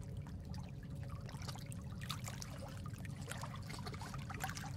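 Running water trickling, with many small irregular splashes and drips over a steady low rumble.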